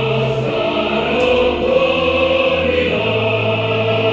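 A choir singing slow, held chords, the notes shifting together every second or so.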